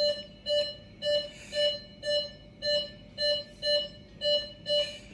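Electronic medical equipment alarm beeping at one fixed pitch, about two short beeps a second, evenly spaced.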